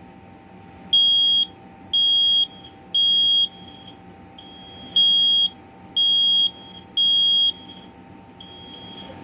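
Kidde i9010 battery-powered ionization smoke alarm sounding its test alarm: a shrill, high-pitched beep, three times, then a pause, then three more. This is the temporal-3 evacuation pattern, triggered here by pressing the test button.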